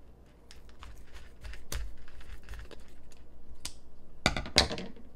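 Plastic pickle pouch crinkling as it is handled and cut open with scissors: a string of small clicks and rustles, then two sharp, loud clicks close together near the end.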